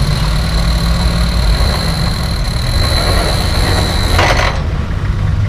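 Off-road 4x4 engine running with a steady low rumble, under a steady high whine that cuts off about four seconds in, followed by a short noisy burst.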